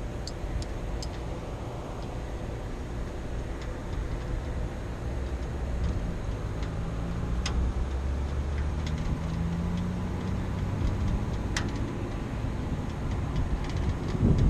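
Steady low rumble of rooftop background noise, with a faint engine-like drone that rises slightly in pitch in the middle and a few light clicks from hands working the unit's wiring.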